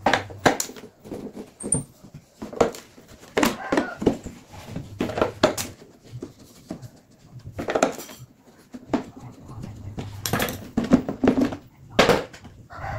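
Irregular clicks and knocks of a screwdriver working the screws out of an amplifier case's wooden top panel, with screws and metal handled, and the panel lifted off.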